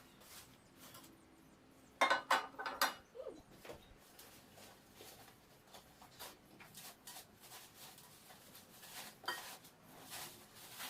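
Pieces of a non-stick cookware set being handled: a burst of clattering knocks about two seconds in, then light taps and rustling of packaging. A cat meows briefly just after the clatter.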